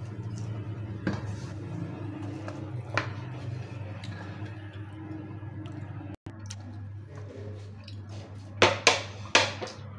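Wooden spatula scraping a thick cooked coconut barfi mixture out of a steel karahi and onto a ceramic plate, with faint scrapes and clicks. Near the end come three sharp knocks of the spatula against the plate.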